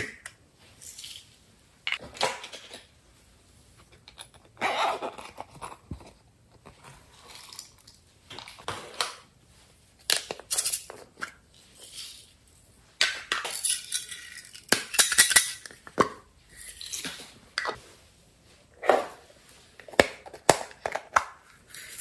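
Beads, glitter and sprinkles rattling in small plastic containers as the containers are handled, opened and shaken out onto slime. The sound comes in repeated bursts with short pauses between them.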